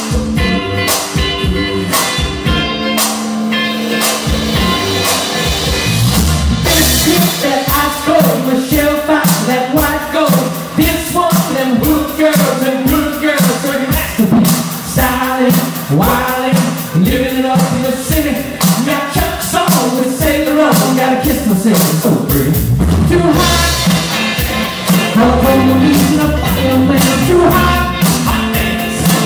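Live band playing a song, with electric guitar and drums and a singer on vocals through much of it.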